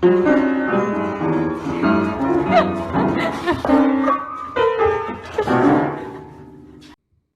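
Music with piano and bowed strings, a run of held notes changing every half second or so, that cuts off suddenly about seven seconds in, leaving silence.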